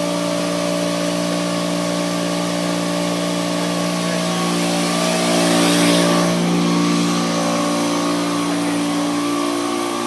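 Steady motor hum with a hiss that swells about five to six seconds in.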